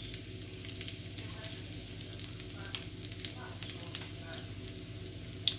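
Chopped garlic frying in olive oil in a pan: a steady, quiet sizzle with scattered small crackles and pops.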